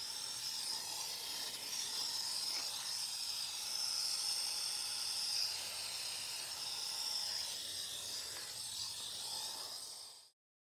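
Water spraying from a garden hose nozzle onto the soil at the base of the plants: a steady hiss that cuts off suddenly near the end.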